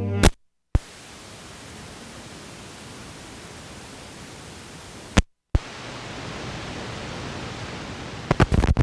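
Steady hiss from the Sony Walkman's audio with no music, cut by sharp clicks and two brief dead-silent dropouts. A quick run of clicks comes near the end.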